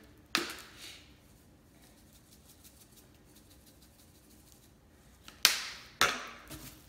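Spice jars and containers being handled on a stone countertop: a sharp click about half a second in, then two more sharp clicks close together near the end, with quiet between.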